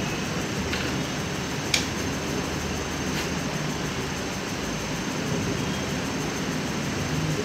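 Steady fan-like hum and hiss of room noise, with a few faint clicks. The sharpest click comes nearly two seconds in.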